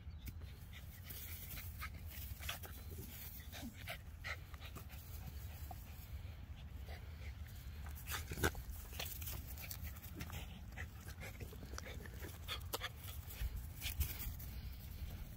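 Dog panting while playing on grass, with scattered short sharp sounds throughout, the loudest about eight and a half seconds in, over a steady low rumble.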